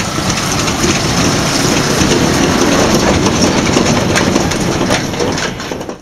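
MAN truck and its covered grain trailer driving across a harvested field, the engine running and the trailer body and running gear rattling loudly over the rough stubble. The noise drops away over the last second.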